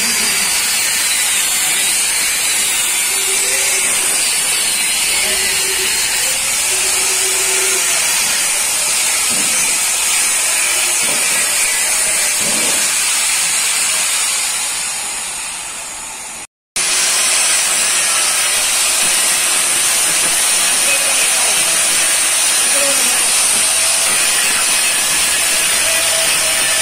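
Handheld electric angle grinder running at speed with its disc grinding steel bar: a steady high whine over a harsh hiss. About halfway through it fades away and breaks off, then the grinding starts again.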